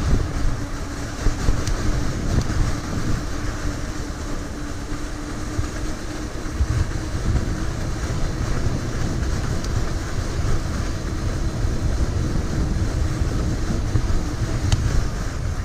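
Voltbike Yukon 750 fat-tire e-bike riding on hard-packed snow: a steady hum from the rear hub motor over the low rumble of the fat tyres and wind on the microphone.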